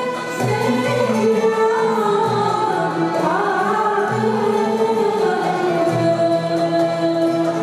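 A woman singing solo in Turkish art-music style with long, ornamented held notes that glide between pitches. She is accompanied by a traditional Turkish ensemble of oud, kanun and violin.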